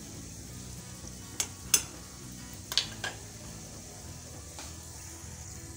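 Mustard oil with garlic cloves and spices sizzling gently in an iron kadhai on a low flame. A metal spoon clinks sharply against the pan twice about a second and a half in, and twice more around three seconds in, as the mixture is stirred.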